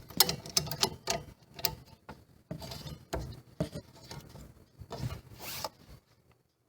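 Irregular clicks, rattles and short scrapes of table saw parts being handled, with a longer scrape about five seconds in, as a rear adjustment on the saw is opened and slid up and down.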